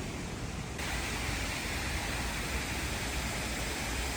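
Steady rushing noise with no distinct events, becoming louder and brighter about a second in.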